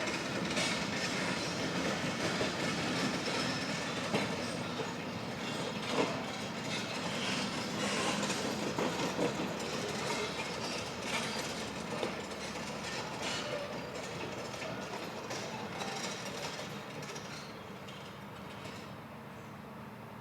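A heavy vehicle's rattling, clanking rumble, with sharp metallic clanks scattered through it, slowly fading away over the last several seconds.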